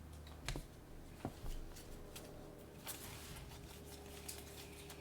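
Faint rustling and crinkling of a foil Pokémon booster pack and its cards being handled, with a few light clicks, mostly in the second half.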